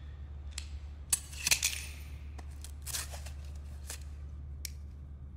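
Broken glass shards crunching and clinking in a series of sharp, irregular clicks, the loudest about one and a half seconds in, over a steady low hum.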